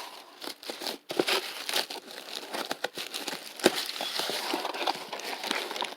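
Crinkling and rustling of wrappers and paper as hands rummage through a stuffed piñata for candy, with many small crackles and one sharper tick about two-thirds of the way through.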